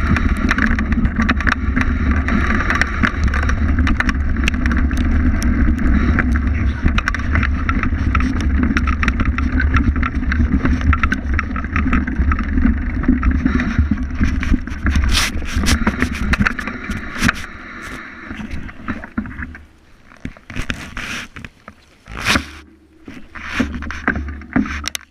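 Wind rushing over an action camera's microphone and a fat bike rumbling and rattling down a rocky dirt trail, with many sharp clicks and knocks from the bike and stones. About three quarters of the way through the rush drops away as the bike slows to a crawl, leaving scattered knocks and crunches.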